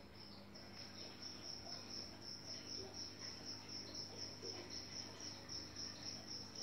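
Insect chirping, cricket-like: a high, evenly pulsed trill of about four pulses a second, over a faint steady low hum.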